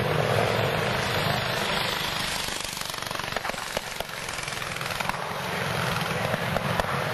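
Antique pre-1910 board track racing motorcycles running flat out past close by. They are loudest at first, fade about three seconds in, then build again toward the end as more bikes come round.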